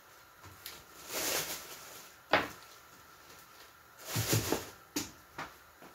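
Thin plastic bag rustling and crinkling in a few short bursts as lettuce is handled and pulled out of it, with a sharp tap about two seconds in and a couple of lighter clicks near the end.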